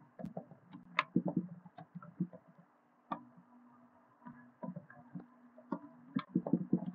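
Computer keyboard and mouse clicks: a dozen or so single clicks spaced irregularly, a few closer together near the end, over a faint steady low electrical hum.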